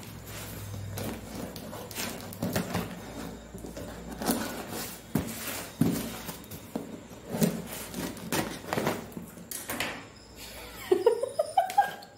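Packing tape on a cardboard box being slit with a knife and the flaps pulled open: a run of scrapes, crackles and knocks of tape and cardboard. Near the end, tape pulled away with a short, stuttering squeal that rises in pitch.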